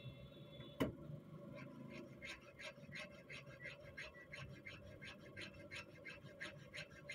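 A round hand file rasps in quick back-and-forth strokes, about three a second, on a small steel rifle-ejector blank clamped in a bench vise, while the ejector is filed to shape. A single sharp click comes a little under a second in, over a faint steady hum.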